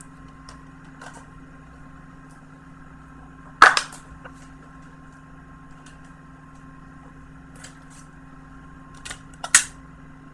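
Sharp plastic clicks and taps from a Blu-ray case being handled: one loud snap about three and a half seconds in, a quick cluster of clicks near the end, and light ticks in between.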